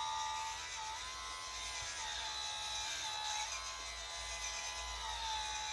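Electric hydraulic pump of a remote-control model excavator (a Huina 1592 converted to hydraulics) whining steadily as it drives the boom and bucket. Its pitch dips and recovers several times as the arm takes the load.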